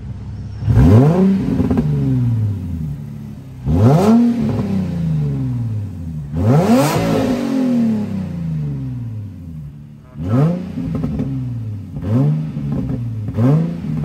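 Nissan 350Z's VQ35HR V6 on its stock exhaust, idling and revved in about six quick blips, each rising sharply in pitch and falling back to idle.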